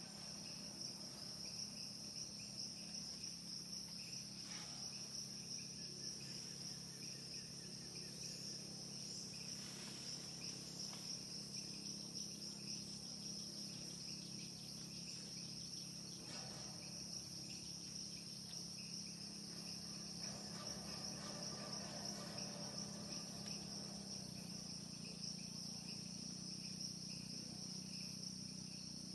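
Insects chorusing in a steady, high-pitched drone, over a steady low hum.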